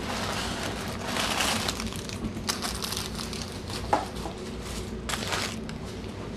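Crinkling of McDonald's paper sandwich wrappers as they are handled and pressed, in several bursts, with one sharp click a little before four seconds in as a plastic dipping-sauce cup is set down.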